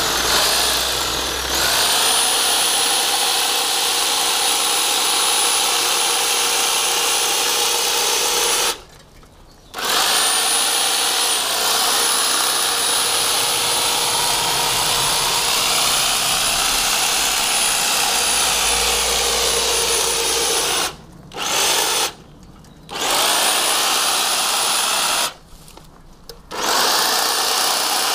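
Corded electric hedge trimmer running steadily with a high whine, its blades cutting through the hedge. It stops and restarts four times as the trigger is let go: once about nine seconds in and three times in the last third.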